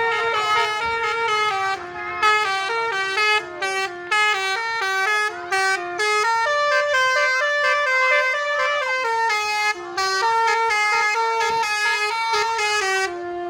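Basuri telolet bus horn playing a fast melody of stepped notes, breaking off briefly a few times.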